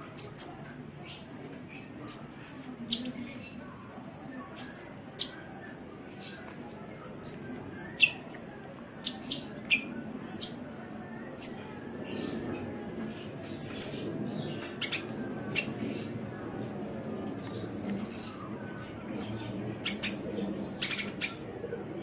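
Small bird calling with short, sharp, high-pitched chirps, one or two at a time every second or two, over a faint low background noise.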